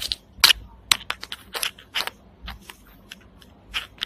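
Hong Kong double-deck tram running along the track, giving an irregular run of sharp clacks and rattles, about fifteen in four seconds, over a faint low rumble.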